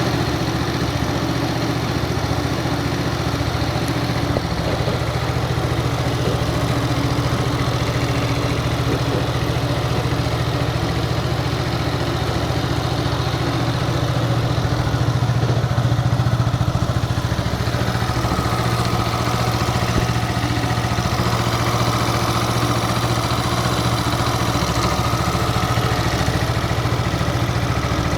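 2010 Yamaha Cygnus X scooter's single-cylinder engine idling steadily, with a higher steady tone joining in about two-thirds of the way through. This is the abnormal noise (異音) the owner has heard at start-up since about 600 km, in place of the full, low sound it had when new; its cause is not known.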